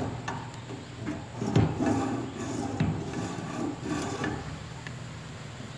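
Handling noise from a homemade metal satellite dish mount being shifted by hand at its focal-length adjustment: a few light knocks, about one a second, with rubbing in between.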